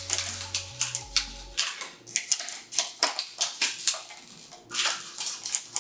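Scissors snipping through a thin plastic water bottle, with the plastic crinkling as it is handled, in quick irregular cuts of several snips a second.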